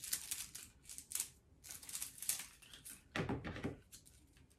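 Irregular crinkly rustling and light clicks of hands handling small craft pieces, with a duller bump a little past three seconds in.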